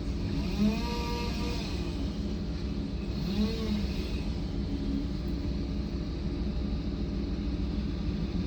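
A large engine running steadily with a low rumble, holding an even level throughout.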